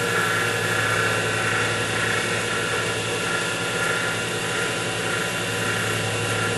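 X2 mini mill's spindle running steadily at about 800–900 RPM with a drill bit turning in an aluminium workpiece: a constant low hum with a higher whine above it. The drill is left spinning in the hole so the chips can clear up the flutes, and the machinist judges by this sound when they are out.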